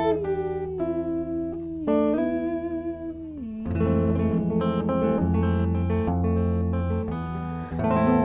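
Archtop hollow-body electric guitar played solo: an instrumental passage of chords and ringing single notes, with a few notes bent or slid in pitch, one gliding down about three and a half seconds in.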